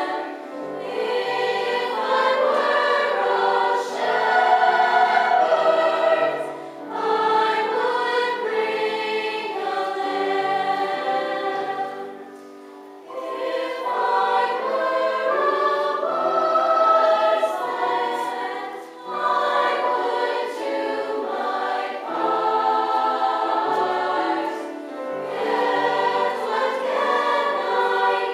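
A youth choir, mostly young female voices, singing in parts. Each phrase is held for several seconds with a short break between phrases, the longest break about 12 seconds in.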